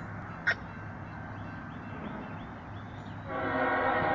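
Locomotive air horn on a CSX coal train sounding a steady chord, starting about three seconds in and still going at the end, over a low background rumble. A single sharp click comes about half a second in.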